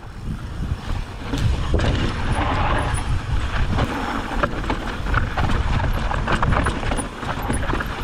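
Mountain bike descending a dry, loose dirt and rock trail: tyres rolling and crunching over the dirt with frequent small knocks and rattles from the bike, under a steady low rumble of wind on the microphone.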